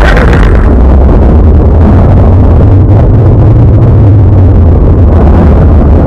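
Strong wind blowing: a loud, steady low rumble with a noisy rush above it.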